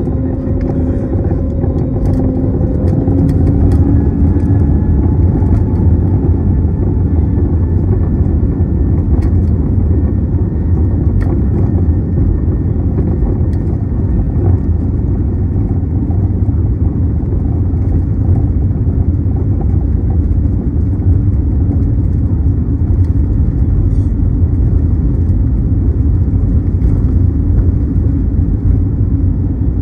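Airbus A320neo jet engines spooling up, a rising whine over the first few seconds, then a steady loud rumble of engines at high thrust and wheels on the runway during the takeoff roll, heard from inside the cabin.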